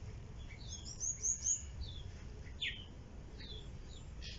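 Small birds chirping: short, high, falling chirps, a quick run of them about a second in and a few more spaced out after.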